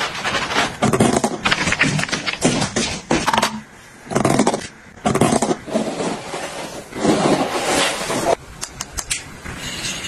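Hands squishing and rubbing shampoo lather into wet hair, then a comb drawn through damp hair in separate strokes, each lasting about a second.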